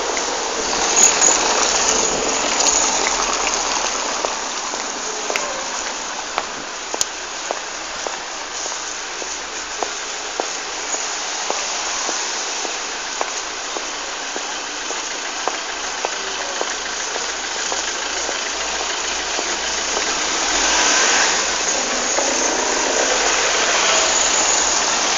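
Rain falling on a wet cobbled street, mixed with the engines of vehicles running and moving on the wet road, with scattered light clicks. The sound swells louder about a second in and again near the end.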